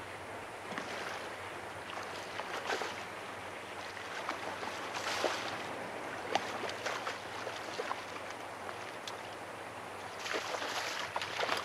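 Shallow sea water lapping and splashing around a wading angler, with many small splashes and clicks and two brief louder splashy washes, one near the middle and one near the end.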